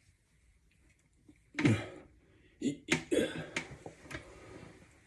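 Plastic toilet fill-valve kit parts being handled, giving several sharp clicks and knocks, with one brief vocal sound like a throat-clear before them.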